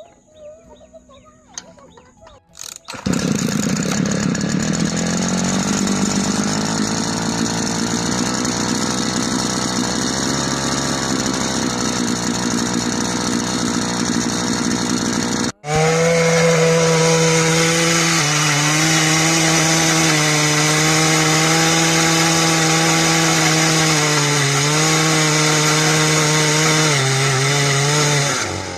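A small engine-driven earth auger starts up about three seconds in and runs at high revs, its pitch rising and then holding steady while it bores a hole in the ground. After a brief break midway it runs on, dipping slightly in pitch a few times.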